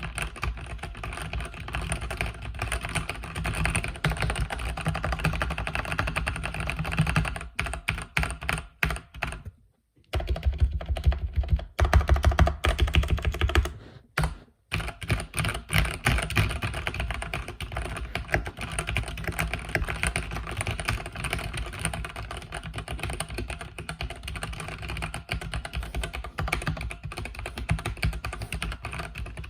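Mechanical keyboard with red linear switches being typed on in fast, continuous bursts of key clacks, with two brief pauses, one around ten seconds in and one around fourteen seconds in.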